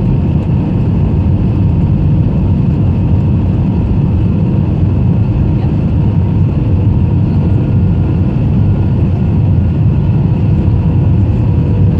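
Airbus A321 cabin noise on approach: the steady rumble of the jet engines and airflow heard inside the cabin over the wing, with faint steady tones above it.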